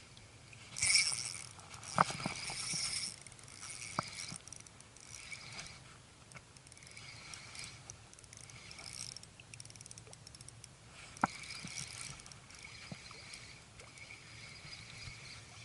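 Shimano Biomaster spinning reel being wound in short bursts with pauses, bringing a lure back in, with a few sharp clicks along the way.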